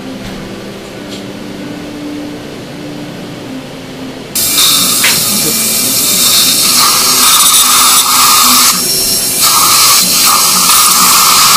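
Dental handpiece running, starting abruptly about four seconds in and staying loud and steady, with two brief dips near the end.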